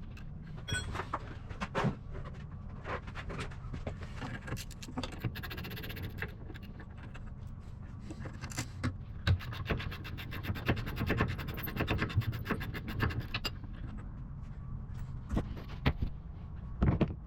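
Hand tools clicking and scraping on metal as the brake caliper bolts of a UTV's rear wheel hub are undone, with a run of rapid, even clicks in the middle, over a steady low hum.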